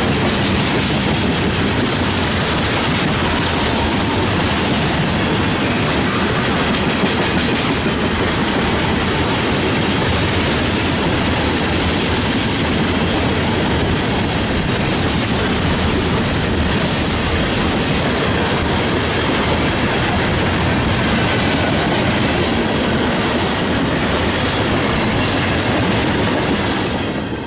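A freight train's tank cars rolling past at close range: steady noise of steel wheels on the rails, cutting off suddenly at the very end.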